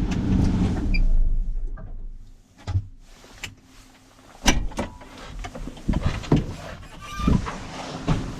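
Cat 930 wheel loader's diesel engine running steadily, then dying away about two seconds in. It is followed by a series of scattered knocks and clunks.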